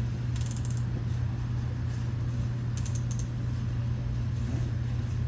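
Large nylon zip ties being pulled tighter by hand, giving two short runs of rapid ratcheting clicks, about a second in and about three seconds in, as the tails slide through the locking heads. A steady low hum runs underneath and is louder overall.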